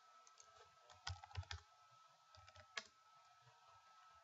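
Faint computer keyboard typing: a quick run of keystrokes about a second in, then a few more ending in one sharper click just before the three-second mark.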